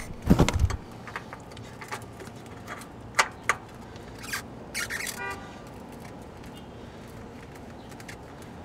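Handling noises: a heavy thump and rustle as the camera is moved and set down, then a few light clicks, taps and scrapes of hands working in the engine compartment, over a low steady background.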